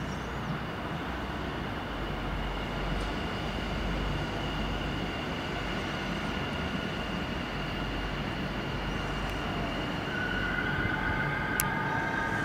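Electric multiple-unit passenger train pulling into the platform: a steady rumble with a thin high whine, getting slightly louder as it nears. In the last couple of seconds several higher whining tones join as it slows, with one sharp tick near the end.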